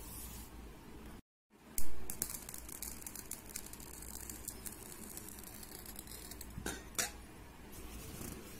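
Handling clinks and knocks of a drinking glass and a steel plate as the glass is set down over a lit candle standing in water. A sharp knock comes just after a brief dropout about a second and a half in, followed by a scatter of small clicks, and two more clicks come about a second before the end.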